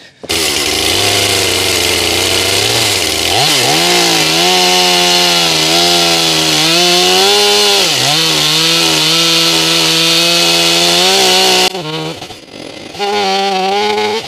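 Stihl chainsaw cutting through a large log round. It runs at lower revs for about three seconds, then is throttled up to a steady high-revving cut. Its pitch dips briefly about eight seconds in, it drops away near twelve seconds, and it revs up again near the end.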